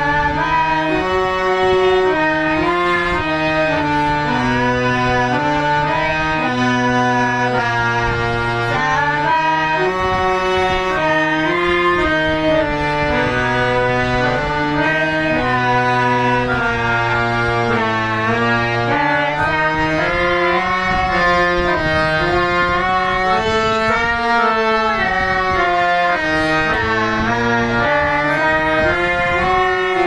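Background instrumental music: a melody of held notes moving over sustained low bass notes that change every second or two.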